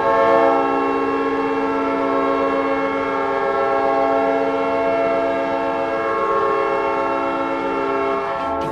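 Goal horn: a multi-tone air horn sounding a chord in one long, steady blast of about eight and a half seconds.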